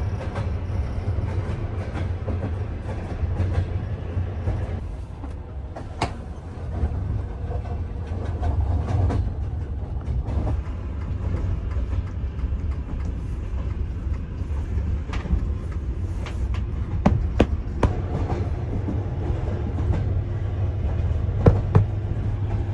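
Soviet-built sleeper carriage rolling along the track: a steady low rumble broken by sharp knocks of the wheels over rail joints, most of them in the second half.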